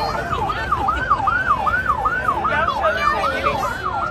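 Emergency vehicle siren in a fast yelp, its pitch sweeping up and down about three times a second.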